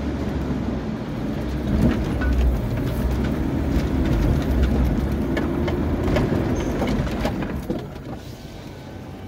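SsangYong Rexton's engine pulling hard, heard inside the cabin, as the SUV crosses a deep muddy water hole and climbs a steep bank, with scattered knocks and rattles from the body and suspension. The engine eases off near the end as the vehicle levels out.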